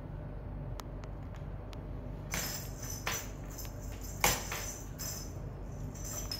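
Small jingle bell jingling in several short bursts as a Siamese cat paws and bats its toy, the loudest shake about four seconds in. A few faint taps come before the jingling.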